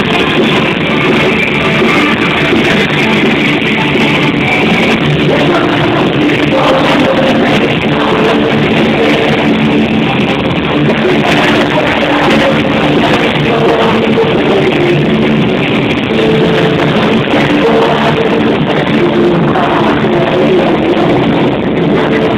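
A live rock band playing loudly, with electric guitar and drum kit, recorded from within the audience.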